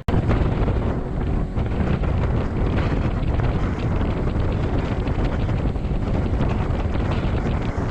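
Steady wind rumble and buffeting on the microphone aboard a moving boat, with no distinct engine tone standing out.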